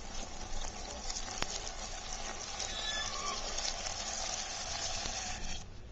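Hot oil sizzling and crackling in a small pan as beaten egg streams through the holes of a perforated spatula into it and fries. It cuts off suddenly near the end.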